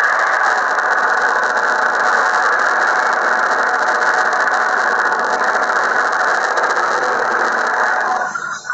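Film sound effects of a swarm of mobile phones forming a giant bird creature: a dense, steady mechanical din that drops out briefly near the end.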